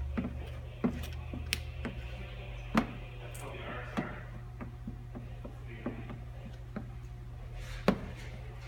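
Plastic squeegee working paint protection film onto a car bumper: scattered single sharp clicks and taps with a few brief soft swipes, over a steady low hum.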